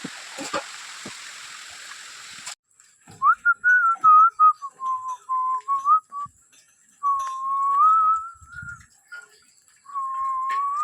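A person whistling a wavering tune in three short phrases, each note gliding up and down. It comes after a steady hiss that cuts off abruptly about two and a half seconds in.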